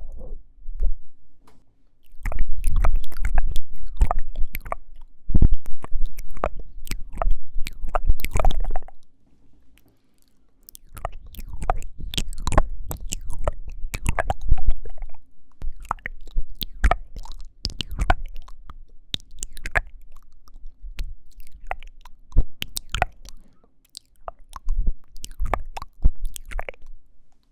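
ASMR mouth sounds made right by the microphone: wet clicks, smacks and tongue noises in dense runs, with a short pause about ten seconds in and sparser clicks in the second half.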